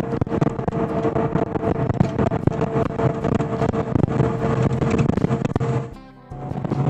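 Inside a moving passenger coach: steady engine and road drone with a held humming tone and frequent small rattles. It drops out briefly about six seconds in, then resumes with a different hum.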